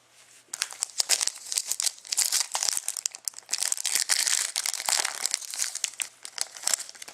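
Trading card pack wrapper crinkling and tearing as a pack is torn open and handled: a dense, irregular run of crackles starting about half a second in.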